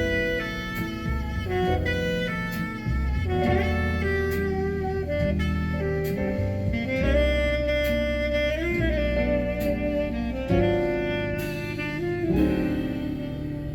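Jazz instrumental music with a saxophone-like lead melody over a steady bass line, played through a car's upgraded stereo (Blam component speakers and a slim subwoofer). The lead holds and bends its notes, with a slow wavering in pitch a little past the middle.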